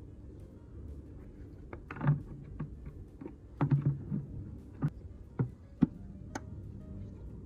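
A string of short clicks and knocks, about a dozen, scattered from about two seconds in until near the end, as a small replacement bulb and its plastic holder are handled and fitted by hand.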